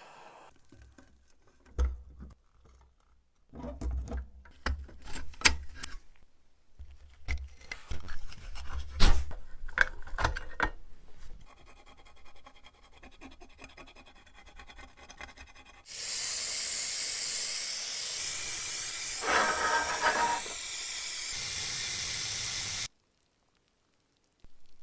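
Hands working on the metal parts of a toy dump truck: scattered knocks, clinks and scraping for the first several seconds. Later a steady hiss runs for about seven seconds and cuts off suddenly.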